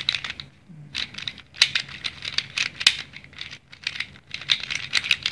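Plastic speed cube being turned rapidly in bursts, its layers clicking and rattling against each other as freshly applied lubricant is worked in.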